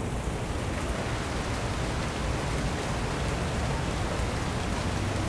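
Steady rain falling, an even hiss with no distinct events.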